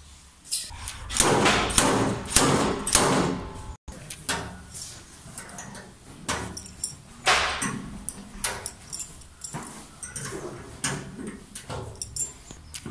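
Irregular knocks, clicks and metal clatter from dent-pulling work on a steel car door panel fitted with welded-on pull rings, busiest in the first few seconds.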